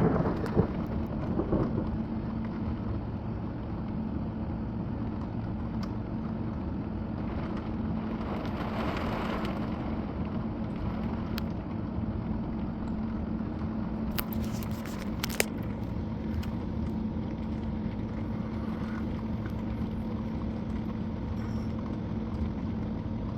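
The tail of a thunderclap dies away in the first second or two. A steady low machine hum with a constant hiss underneath follows, with a few faint ticks about two-thirds of the way through.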